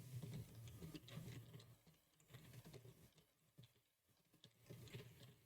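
Faint computer keyboard typing: scattered clusters of soft key clicks, with a pause in the middle.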